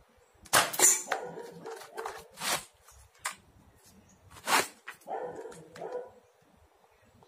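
Cardboard toy gun snapping as it fires a steel ball, followed by a second or so of clattering. Then come sharp clicks and a rattling, scraping stretch as the gun is cocked and reloaded.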